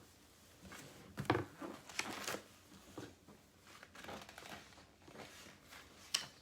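Faint rustling and crinkling of paper, a few short scattered handling noises, typical of a book's pages being handled and turned.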